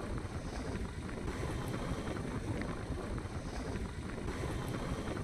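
Steady wind rush buffeting the microphone of a moving motorcycle, with the low running noise of the ride underneath.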